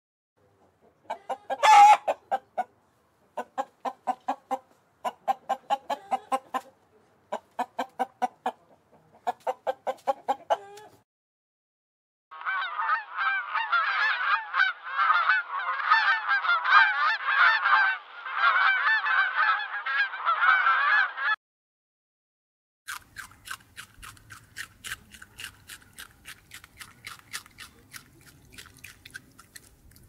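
Animal calls in three separate stretches: five groups of rapid pulsed calls, each group about a second long; then about nine seconds of dense, continuous chattering; then a fast run of clicks.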